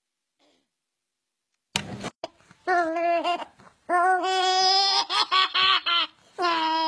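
Baby laughing in a string of high-pitched bursts that starts about two and a half seconds in, after near silence and a short burst of noise.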